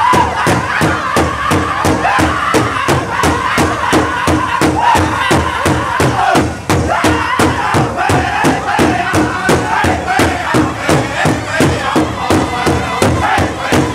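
Powwow big drum struck in a steady beat by a group of drummers, about three beats a second, with the men singing a high, wavering chant over it.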